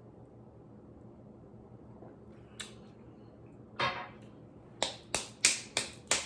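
A woman downing a ginger-and-cayenne shot: a small click, then one longer breathy gasp, then a quick run of five sharp huffs about a third of a second apart as the shot's burn hits.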